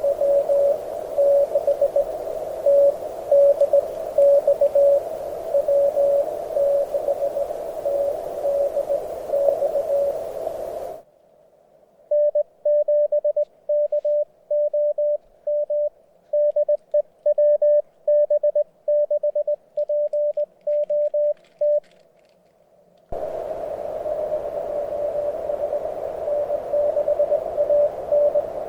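Morse code (CW) from a portable HF amateur radio transceiver: a single tone keyed in dots and dashes. For the first eleven seconds, and again from about 23 s on, the tone comes through a steady hiss of band noise, as a station heard through a narrow CW filter. In between, the hiss drops out and the keying sounds clean, like the radio's sidetone while the operator sends.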